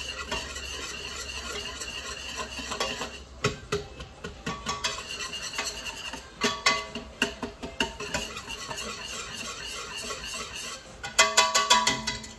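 Wire whisk stirring Alfredo sauce in a stainless steel pot, with scattered clicks of the whisk against the metal sides. Near the end comes a fast run of clicking as it is whisked hard, the loudest part.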